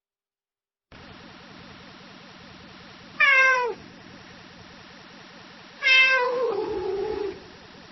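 A cat meowing twice: a short meow falling in pitch about three seconds in, then a longer, drawn-out meow about six seconds in, over a faint steady background hiss.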